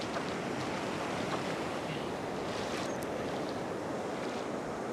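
Ocean surf breaking and washing up over a sandy beach in a steady, even rush.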